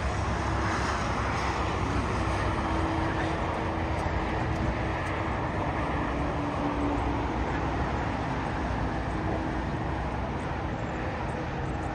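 Jet engines of a Boeing 767 airliner running at low power as it rolls along the runway just after landing: a steady rushing noise with a faint low hum, and a fainter higher whine that fades out about halfway through.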